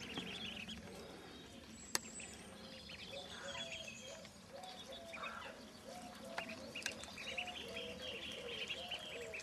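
Half-grown ducklings peeping softly as they move about, a long run of short repeated calls, with small birds chirping in the background. A single sharp click about two seconds in.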